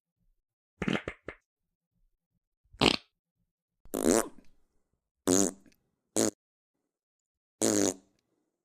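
A run of six short fart sound effects, one after another with silence between, each lasting under a second. The longer ones, about four seconds in and near the end, carry a clear pitch.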